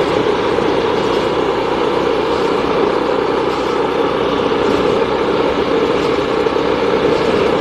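A vehicle engine running steadily on the move, with continuous road and wind noise.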